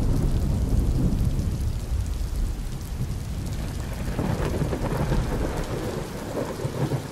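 A loud, steady rumbling wash of noise, heaviest at the low end, with a lighter hiss coming in over it partway through and the whole easing off near the end.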